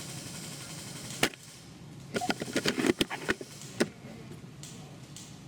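A few sharp clicks and a short run of clatter: a spring-powered airsoft sniper rifle being handled, its mechanism clicking.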